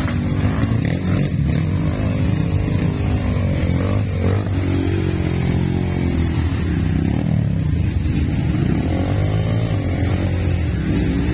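Trail dirt bike engine revving hard, its pitch rising and falling several times as the rider works the throttle.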